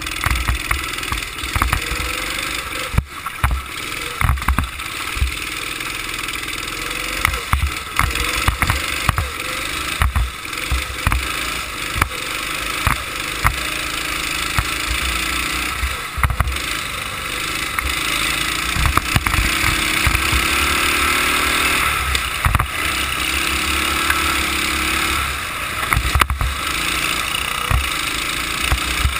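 Go-kart engine running under the driver, its pitch rising and falling through the corners. Wind rumbles on the microphone, and short knocks and thumps come through the chassis.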